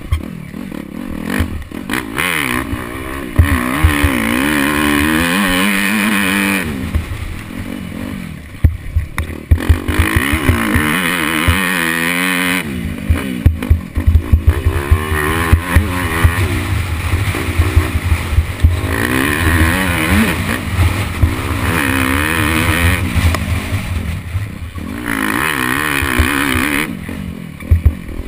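Off-road motorcycle engine recorded from a camera on the bike, revving hard and repeatedly rising and falling in pitch as it accelerates and backs off along the track, with frequent knocks and rattles.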